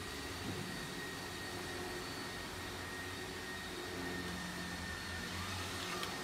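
Steady background hum and hiss, with a faint click about half a second in.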